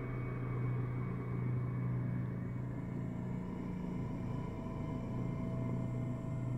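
Dark ambient drone music: a low, steady rumbling drone with several faint held tones layered above it and no beat.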